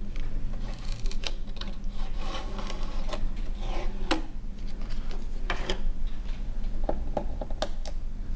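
Protective tape being peeled off the plastic body of a new sewing machine and packing pieces being handled: rubbing and rustling with many separate sharp clicks and crackles.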